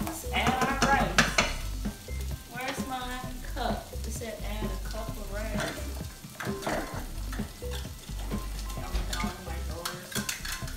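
Mixed vegetables and chopped egg sizzling in a hot nonstick skillet, stirred and scraped with a wooden spatula at first, then left to fry.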